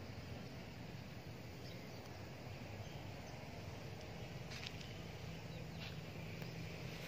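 Steady outdoor background noise with a low hum, and a few faint short sounds about four and a half to six seconds in.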